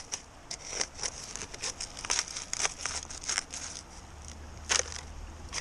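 A small hand trowel digging into root-bound creek gravel: irregular scraping and crunching of stones, with roots tearing as clumps are pulled loose.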